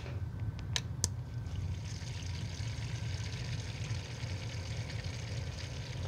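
Custom PC water-cooling loop gurgling and trickling as its DDC pump starts circulating coolant and pushes air bubbles through the slim radiators, over a steady low hum. A couple of short clicks come about a second in.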